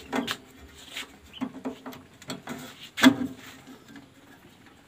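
Scattered knocks and light clatter of metal parts as the stopped 6N100 mini rice mill's roller and housing are handled by hand, with the sharpest knock about three seconds in.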